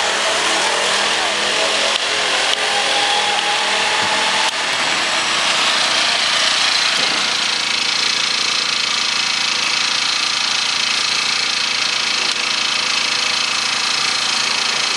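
Small single-cylinder petrol engine on a motorized skateboard running steadily; its pitch wavers in the first few seconds, then settles.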